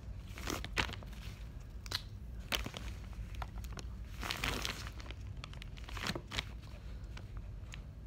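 Irregular rubbing, crinkling and small clicks of a rubber glove being handled while a felt-tip marker is dragged across it, in short strokes a second or two apart.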